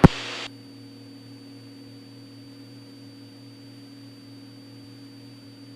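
Steady low drone of a Cessna 206 Stationair's engine and propeller in cruise, heard as a few even tones through the cockpit intercom. It opens with a click and half a second of hiss as the radio transmission ends.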